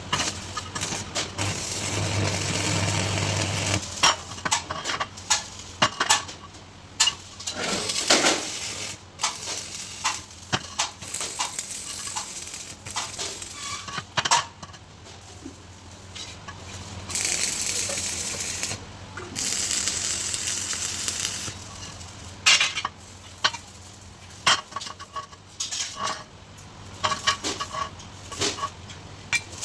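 Electric arc welding crackling in two runs of a few seconds each, one at the start and one about halfway through, with sharp metallic clinks and knocks of work on the metal in between.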